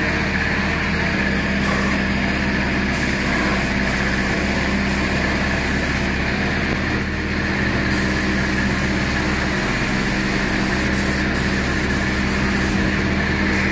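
Air compressor motor running steadily: a continuous engine-like hum with a hiss of air over it.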